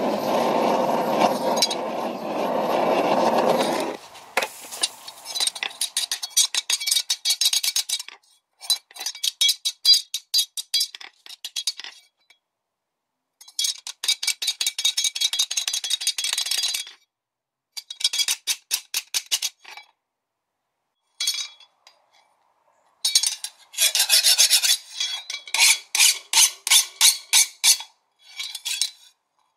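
A steel file drawn in quick rasping strokes, in bursts with short pauses, across the hardened edge of a cleaver blade forged from leaf-spring steel: a file test, showing that the blade is still hard. A loud rushing noise fills the first four seconds.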